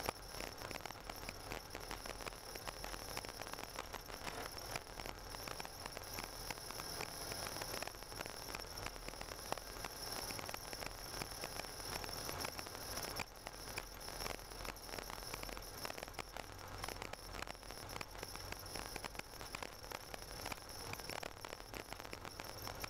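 Car driving on a snow-covered road, heard from inside the cabin: a dense, steady crackling and rattling over a low rumble.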